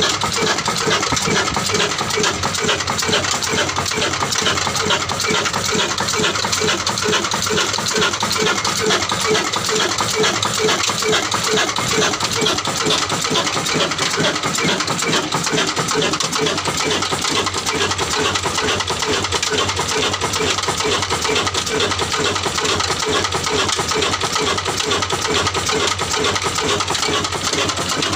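Old black desi stationary diesel engine running steadily, with a fast, even rhythmic clatter from its valve gear and injection pump.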